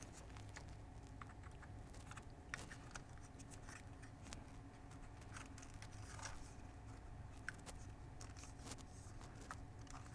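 Faint scattered clicks and taps of a Sony FX30 camera body and its top handle being handled and fitted together, over a low steady hum.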